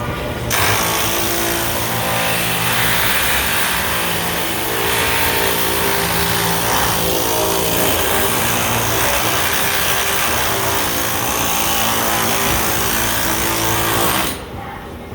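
Pneumatic air hammer working sheet-metal ductwork in one long continuous run of hammering, loud and steady, starting about half a second in and stopping near the end.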